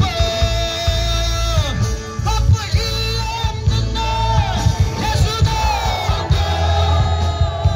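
Amplified gospel praise music over loudspeakers: a singer holds long, sliding notes over heavy bass, with crowd voices mixed in.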